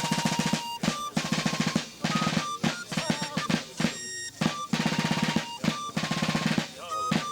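Military snare drums beating fast marching rolls, breaking off briefly about two and four seconds in.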